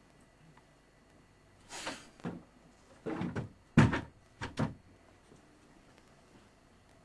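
Performers' bodies scuffling and knocking on a stage floor: a run of about six short rustling knocks, the loudest a dull thump a little before four seconds in.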